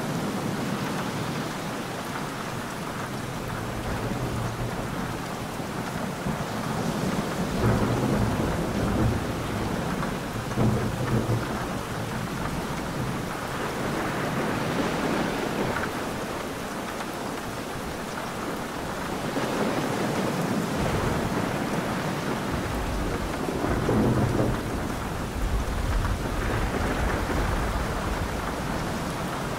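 Steady heavy rain with rolling thunder. Low rumbles swell about a quarter of the way in and again through the second half, over the constant hiss of the rain.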